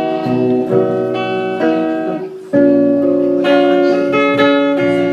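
Guitar playing held chords, with a new chord struck strongly about two and a half seconds in.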